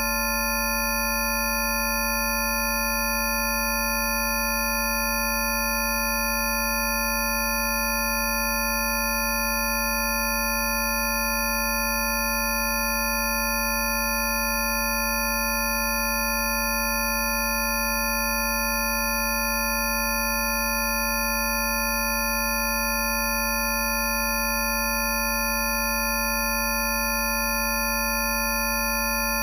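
A stack of steady electronic sine tones at many fixed pitches, from low to very high, held without change over a low steady hum. These are synthesized Rife frequencies sounding together as a healing-frequency track.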